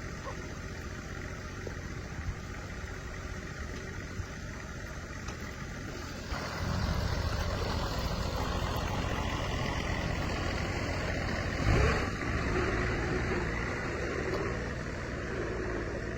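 Steady machine noise that steps up in loudness about six seconds in, with a short knock near the twelve-second mark.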